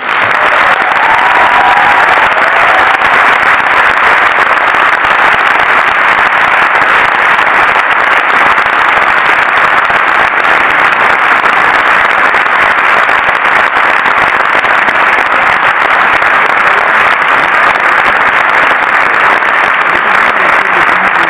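Cinema audience applauding, loud and steady, breaking out right at the start and holding at the same level throughout.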